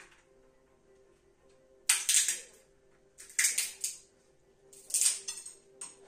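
Walnuts being cracked in a metal hand nutcracker: three sharp crunches of breaking shell about a second and a half apart, with a smaller crack near the end.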